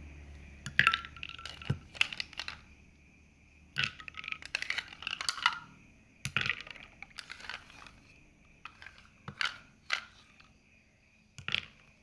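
Ice cubes dropped into a glass, clinking and knocking irregularly, some clinks ringing briefly.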